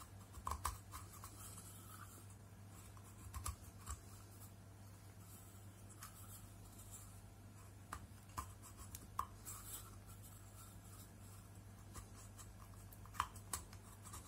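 A bamboo sliver scraping and picking at the silicone glue around the rim of an LED bulb's board: faint, irregular scratches and small clicks over a low steady hum.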